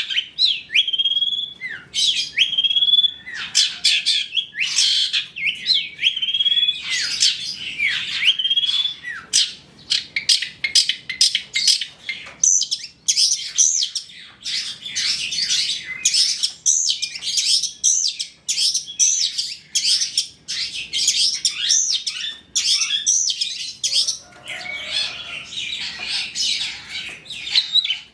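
Long-tailed shrike (cendet) singing a fast, varied song. Sharp whistled notes slur downward early on, then give way to a rapid run of short chattering notes from about halfway.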